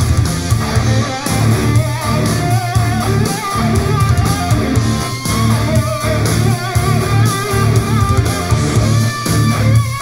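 Guitar-driven hard rock track playing loudly on an IKEA Symfonisk table-lamp Sonos speaker, with a strong bass line under a wavering lead melody.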